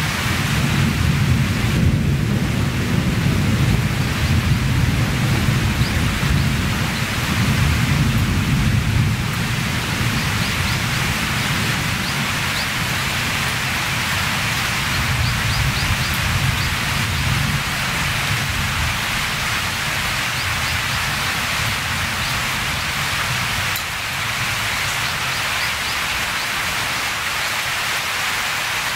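Storm rain falling steadily with a low, gusting rumble of wind, heavier for the first nine seconds or so and then settling.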